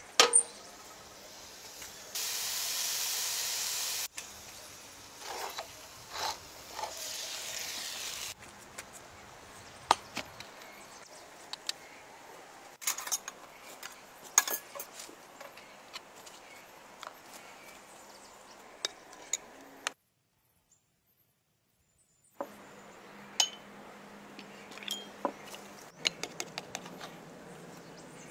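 Metal utensils clinking and scraping on metal plates and a tray, in many short separate clicks, as food is served and cut with a knife. About two seconds in, a steady hiss starts and runs for about two seconds, then a softer hiss follows. The sound drops out entirely for about two seconds near the three-quarter mark.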